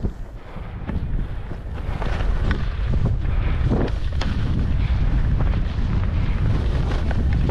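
Wind rushing over the microphone of a rider coming down on a snowboard. It builds over the first two seconds as speed picks up, then holds steady and deep.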